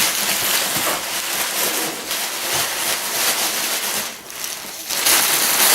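Plastic packaging rustling and crinkling as it is handled and pulled off a new coffee machine, easing off briefly about four seconds in.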